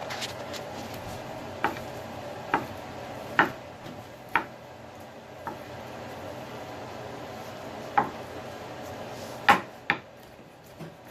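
Chef's knife knocking on a cutting board while dicing cooked chicken breast: about eight separate, irregularly spaced chops, the loudest pair near the end.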